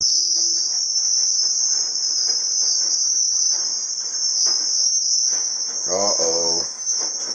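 Maytag 9000 series front-load washer's drive belt squealing with a continuous high-pitched squeal as the tub turns, a sign the belt is worn and due for replacement.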